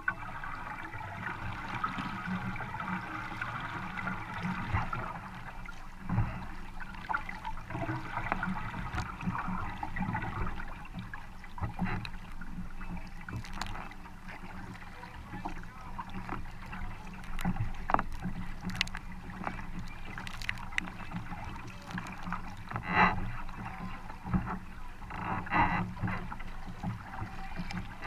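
Kayak paddle strokes dipping and splashing in rhythm, with water rushing along the hull and a few sharp clicks.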